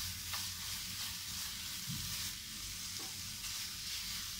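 Grated carrot halwa sizzling in a nonstick frying pan as a wooden spatula stirs and scrapes it, with a few faint taps of the spatula. The halwa is cooked down almost dry, being dried out for barfi.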